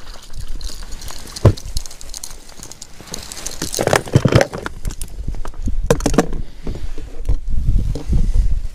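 Close rustling, clicks and knocks as an angler handles rod, tackle and bait in an inflatable boat, with a louder burst of noise about four seconds in.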